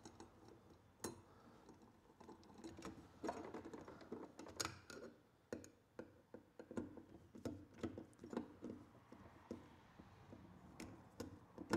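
Faint, irregular clicks and scrapes of a hand screwdriver driving the cover-plate screws into a metal electrical box, metal on metal.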